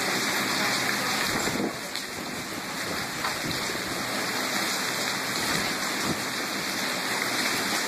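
Heavy downpour: rain pouring onto pavement as a steady, dense hiss. It eases slightly about a second and a half in, then builds back up.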